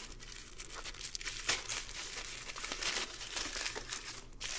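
Thin clear plastic packaging bag being torn open and crinkled by hand, an irregular run of crackles and rustles.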